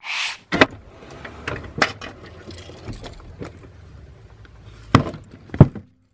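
A steady low hum with scattered sharp knocks and clicks; the loudest two come about five and five and a half seconds in.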